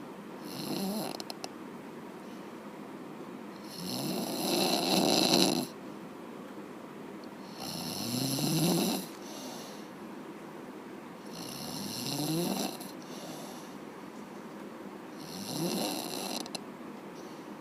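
A sleeping person snoring: five snores about every four seconds, each rising in pitch, the second the loudest.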